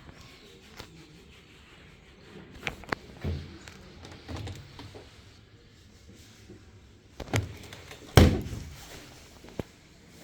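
A series of knocks and thuds, scattered and irregular, with the loudest, heaviest thud about eight seconds in.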